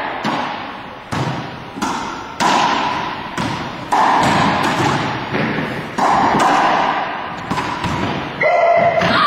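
Racquetball rally: more than a dozen sharp hits of the ball off racquets, walls and floor, each ringing and echoing in the enclosed hardwood court, at irregular intervals of about half a second to a second. A short squeak near the end.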